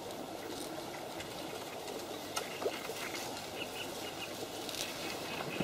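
Lakeside outdoor ambience: a steady soft hiss of wind and rustling reeds, with a few faint bird chirps and a couple of light clicks.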